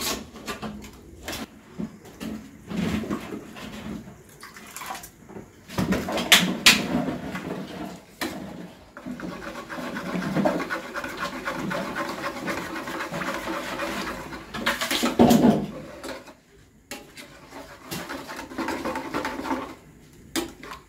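A metal spoon stirring yogurt in an enamel bowl, scraping and knocking against it in irregular clicks, with a few louder knocks.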